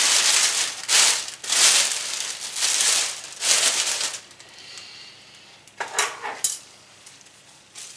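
A turkey-size plastic oven cooking bag with flour inside being shaken to coat it, a run of loud crinkling rustles for about four seconds. Two sharp knocks follow about six seconds in.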